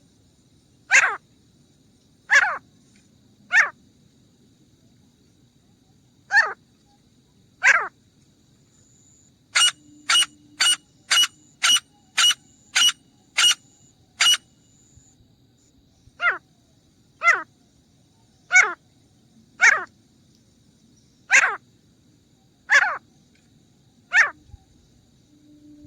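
Grey francolin calling: loud, harsh single calls, each falling in pitch, repeated about every second or so. In the middle comes a quicker run of about nine short sharp notes.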